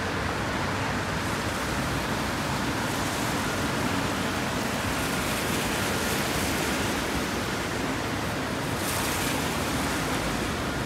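Steady rushing hiss of rain and traffic on a wet street, a little brighter about nine seconds in.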